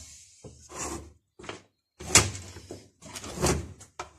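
A chainsaw body and hand tools being handled on a metal workbench: several separate knocks and clunks, the loudest about two seconds in.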